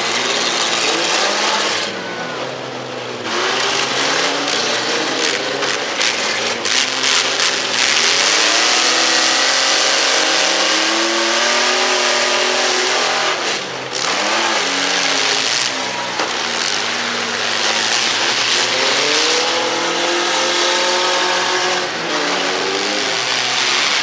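Demolition-derby mini-truck engines revving hard, their pitch climbing and falling again and again as the trucks push and ram one another. A cluster of sharp knocks comes several seconds in.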